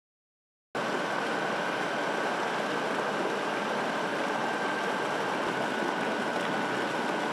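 Paper-pulp mixing tank running: a steady noise of churning slurry and machinery with one constant high whine, cutting in abruptly just under a second in.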